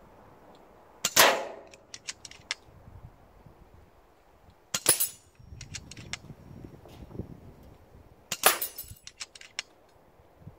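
Three shots from an FX Crown MkII Compact .177 PCP air rifle, about three and a half seconds apart, each report followed by a short run of light clicks. The first shot, about a second in, is the loudest.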